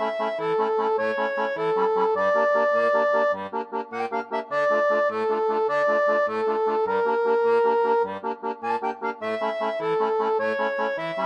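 Background instrumental music: a melody of held notes over short bass notes that bounce regularly on the beat.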